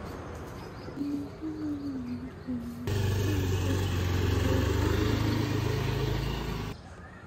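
Small motor scooter riding past close by, its engine running steadily. The sound comes in suddenly about three seconds in and cuts off abruptly near the end, over faint background music.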